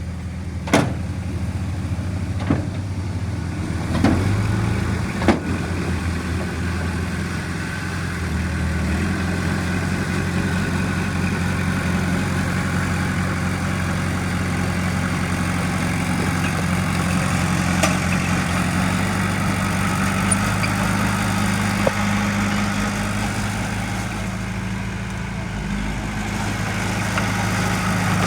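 Heavy diesel engine of an earthmoving machine running steadily, its pitch shifting a little partway through, with a few sharp knocks in the first five seconds.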